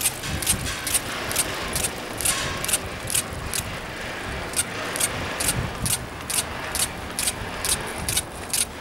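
A 1997 Doppelmayr quad chairlift's rope grip and hanger running through the lift structure: a steady mechanical rumble with sharp, even clicks about twice a second that stop near the end.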